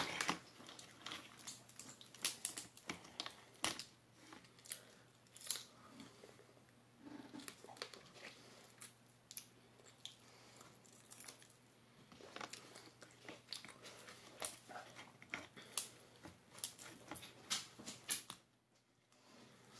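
Cooked lobster body being pulled and picked apart by hand: faint, scattered cracks and snaps of shell, with chewing in between.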